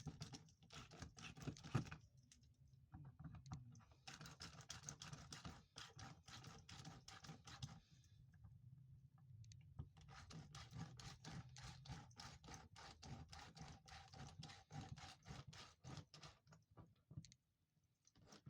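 Faint, rapid clicking and tapping in long runs of many small clicks, breaking off briefly a few times.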